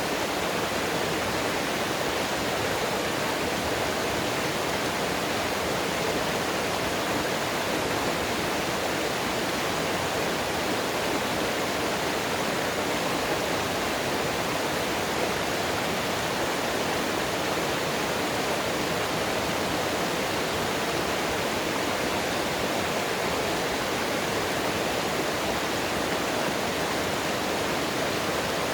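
Mountain water rushing steadily over rocks, an even, unbroken rush.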